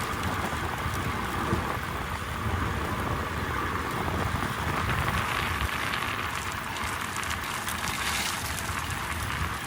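Steady rushing noise of a bicycle ride on the road: tyres and wind.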